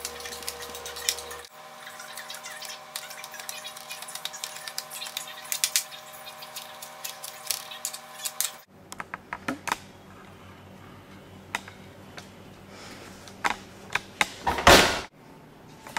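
Knife edge scraping and tapping through packed damp sugar on a baking sheet as it is scored into cubes, many quick scratchy clicks over a steady hum. After a few sparser clicks there is one loud clunk near the end as the tray goes into the oven and the oven door shuts.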